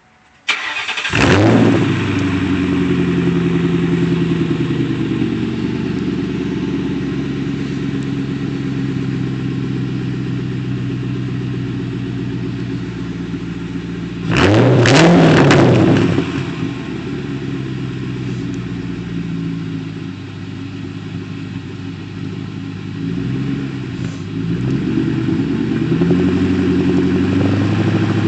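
2004 Ford Mustang GT's 4.6-litre V8, mufflers deleted and catalytic converters kept, starting up about half a second in and settling into a steady, loud idle. About halfway through it is revved once sharply and drops back to idle, then is blipped lightly a few times near the end.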